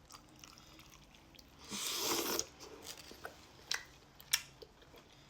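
A person chewing a bite of stewed chicken, with wet mouth clicks and smacks. A short, louder rush of noise comes about two seconds in.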